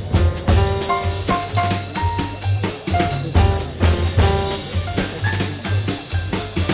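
Background music: an upbeat instrumental with a drum kit keeping a steady beat under a bass line and short melody notes.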